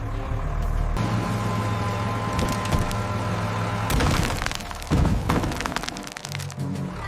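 A vehicle engine running steadily, joined from about two and a half seconds in by a run of cracking and splintering, with a heavy thud about five seconds in.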